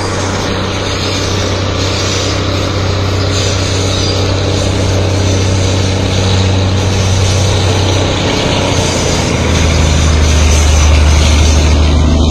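An engine running steadily with a low drone over a rushing noise; about nine seconds in the drone drops in pitch and gets louder.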